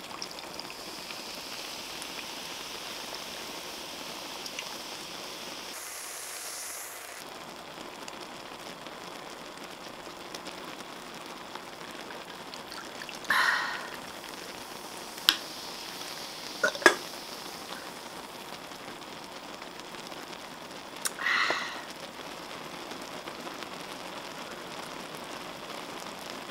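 Ramyun broth boiling in a wide pan with a steady sizzle, while a carbonated drink is poured from a can over ice in a glass mug and fizzes. A few sharp clicks and two short louder bursts come in the middle.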